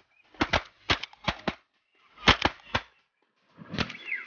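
Shotgun shots fired at flying ducks: about ten sharp reports in quick clusters of two or three.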